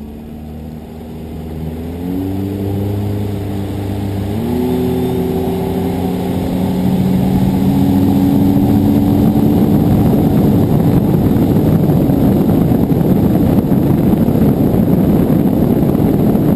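Bass boat's outboard motor accelerating, its pitch climbing in two steps, about two and four and a half seconds in, then giving way to a loud, steady rush of wind and water as the boat gets up to speed.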